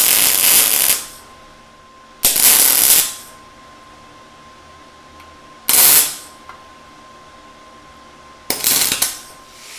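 MIG welder arc crackling in four short bursts, the first about a second and a half long, the others shorter, as scrap wire is welded along the edge of thin 18-gauge sheet steel.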